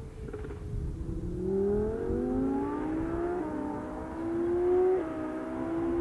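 A sports car engine accelerating hard, its pitch climbing steadily from about a second in, with quick upshifts about three and a half and five seconds in.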